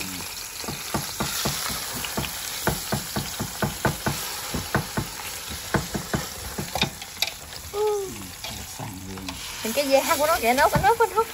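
Fish frying in hot garlic oil in a pan: a steady sizzle with many sharp clicks and crackles.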